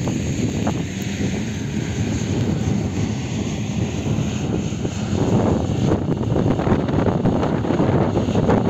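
Steady drone of a crawler bulldozer's diesel engine stripping topsoil, mixed with wind rumbling on the microphone that grows louder about five seconds in.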